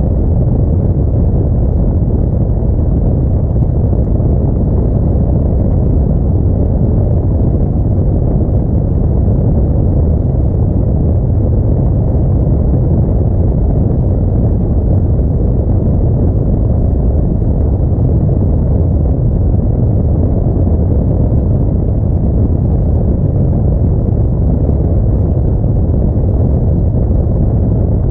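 Steady low rumble of an Audi A4 driving: road, engine and wind noise blended together, with no sudden sounds.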